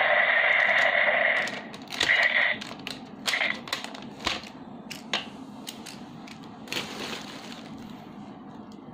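DX Gaburevolver toy gun's electronic firing sound effect through its small built-in speaker: a loud, noisy blast for about the first second and a half, then a few shorter bursts. After that come scattered plastic clicks from the toy being handled.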